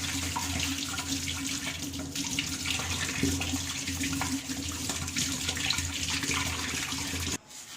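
Tap water running steadily into a sink while the washing machine's drum filter parts are rinsed under it; the flow cuts off suddenly near the end.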